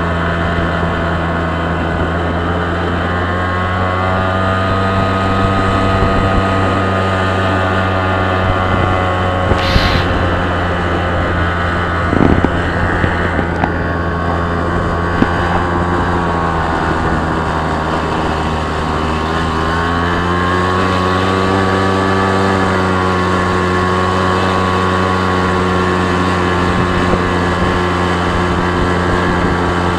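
Engine of a moving road vehicle running steadily as it drives along. Its pitch dips and then climbs back about two-thirds of the way through, and there is a single knock about twelve seconds in.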